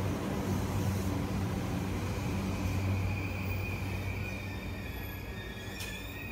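Electric commuter train running slowly into a station and braking: a steady low motor hum and rolling noise that fade as it slows, with a thin high whine coming in about halfway.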